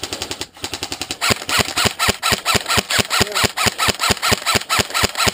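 Airsoft rifle firing on full auto: a short fast burst, then after a brief break a long, steady string of sharp shots at about six or seven a second.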